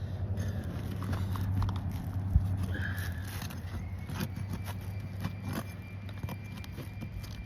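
Scraping and scattered knocks and clicks of a tool prying up asphalt shingles and their nails, with one sharp knock about two and a half seconds in, over a steady low rumble.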